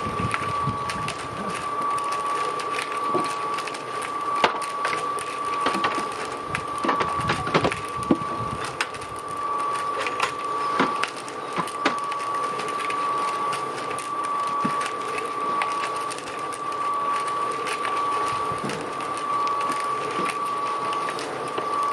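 A small electric motor whines steadily at one high pitch, with scattered knocks and scraping, loosest and most frequent in the first half.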